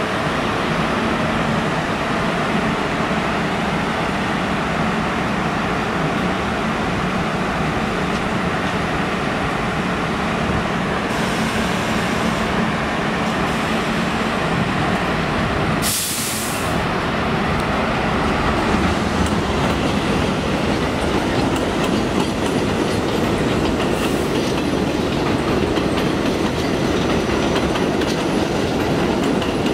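R32 subway train standing at an elevated platform with a steady hum, then a short hiss about halfway through, after which it pulls out: the noise of its motors and wheels grows as it gets under way and rolls past, with some clickety-clack over the rail joints.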